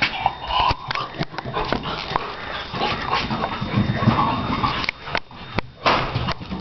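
Shar Pei dog making short vocal sounds while playing, among frequent clicks and knocks.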